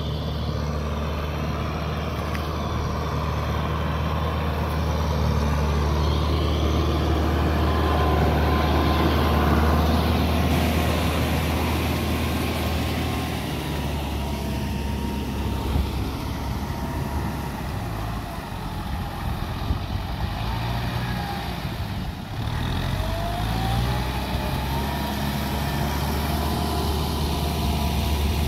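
Tractor engine running steadily, a continuous low hum that grows a little uneven around the middle before settling again.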